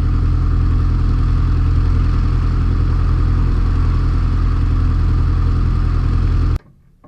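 Light aircraft piston engine and propeller running steadily, heard loud as from inside the cockpit; the sound cuts off abruptly near the end.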